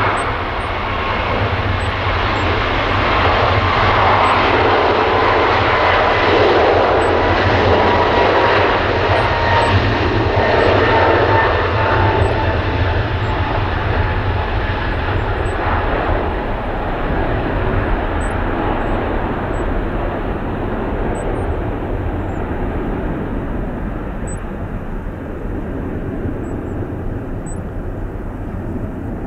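Boeing 777-200's twin jet engines at takeoff thrust as the airliner rolls, lifts off and climbs away. A loud, dense engine noise carries a thin whine that slowly falls in pitch. It is loudest in the first third and then fades steadily, losing its high end.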